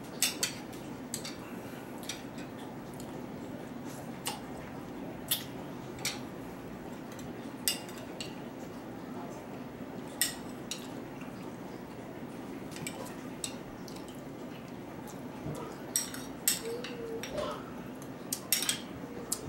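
Metal spoon clinking and tapping against a soup bowl now and then as soup is eaten, about a dozen sharp clicks at uneven intervals over a steady low hum.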